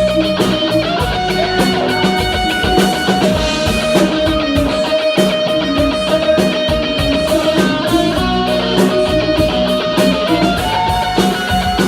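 Live rock band playing an instrumental passage, with electric guitar over a steady drum-kit beat and no singing.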